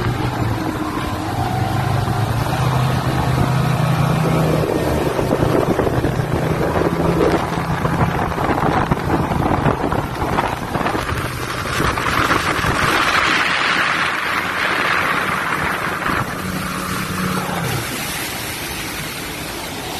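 Motorboat engine droning under way at speed while towing an inflatable tube, with the rush of the wake and wind buffeting the microphone. A louder hiss of spray swells from about the middle, and the engine tone drops in pitch near the end.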